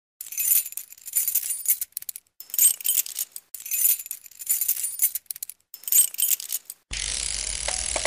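Title-sequence sound effects: clusters of bright metallic jingling and clinking, heard only in the treble, coming in groups about every second and a half. Near the seven-second mark a steady, fuller drone with a low rumble takes over.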